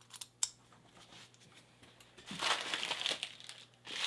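Two light clicks, then packaging crinkling and rustling in two spells as the next padlock is taken out and unwrapped.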